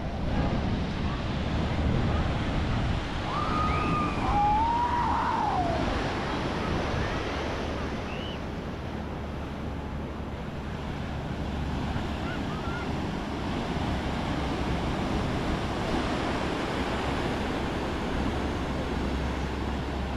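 Surf breaking and washing in below a pier, with wind buffeting the microphone. A couple of short gliding calls sound about four to six seconds in.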